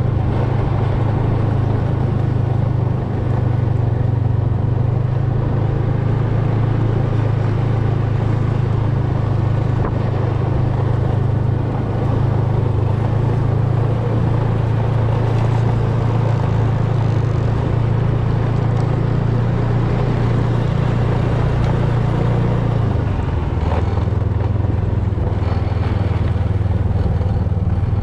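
Snowmobile engine running steadily under way, a loud even drone; its note drops slightly near the end.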